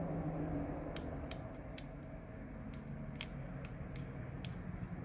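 Faint, sharp clicks and ticks, a few about a second apart, from a small precision screwdriver working the two tiny screws of a Fitbit Charge 2's internal bracket, over a low steady hum.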